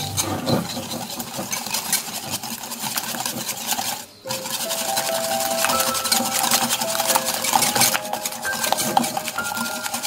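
Wire balloon whisk beating eggs and brown sugar in a ceramic bowl: a fast, continuous clicking and scraping of the wires against the bowl, with a brief pause about four seconds in.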